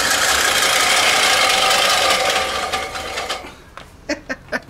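A power tool running steadily at workshop level, easing off after about three and a half seconds, followed by a few short sharp knocks.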